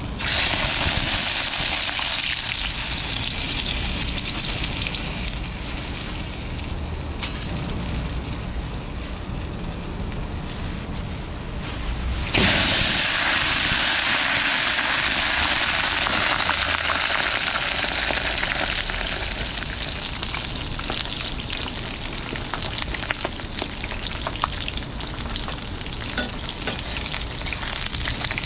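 Food sizzling in a hot pan. It flares up sharply twice, just after the start and again about twelve seconds in, each time slowly dying down, with small crackles throughout.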